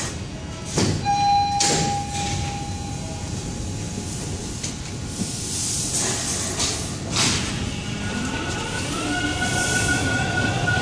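Bombardier T1 subway train starting to depart: two clunks about a second and two seconds in, a short fading tone, and bursts of air hiss. Then the motor whine rises steadily over the train's rumble as it begins to pull away near the end.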